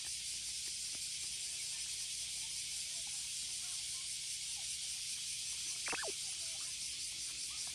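Chorus of cicadas buzzing as a steady high-pitched hiss, with a child's short squeal about six seconds in.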